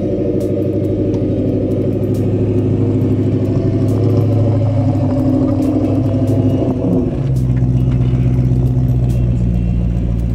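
Lexus 3UZ-FE V8, swapped into a Mercedes C230 coupe, idling through its newly fitted exhaust with a steady low note. The note changes about seven seconds in.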